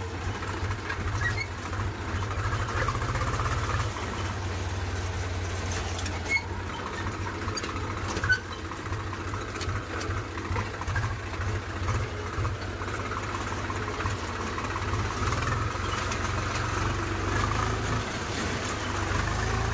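Farm tractor's diesel engine running steadily at low speed under load, with an even, pulsing low rumble. A single sharp knock sounds about eight seconds in.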